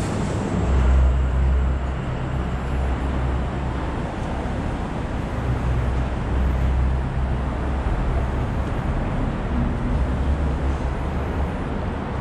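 Street traffic: motor vehicles running and passing, their low engine rumble swelling three times.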